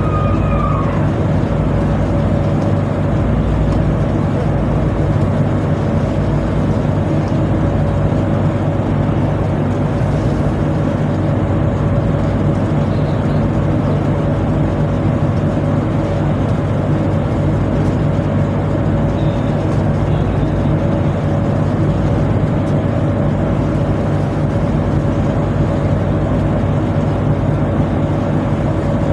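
Steady low drone of a tugboat's machinery running, with a thin steady whine riding above it.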